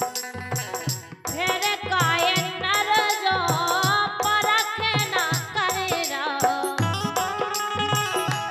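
A woman sings a Bundeli folk wedding song (vivah geet) into a microphone, her voice wavering and sliding between notes. A harmonium holds the chords beneath her, and a steady hand-drum beat keeps time.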